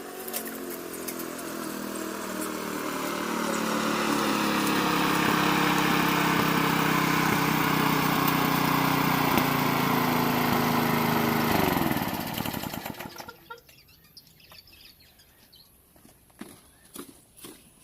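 Briggs & Stratton 140cc single-cylinder four-stroke engine of a walk-behind lawn mower running steadily, growing louder over the first few seconds. About twelve seconds in it is shut off, and its pitch falls as it winds down to a stop. A few light clicks and knocks follow in the quiet.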